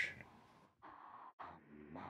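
Faint acoustic guitar strumming, starting about a second in and coming in as a few separate strums.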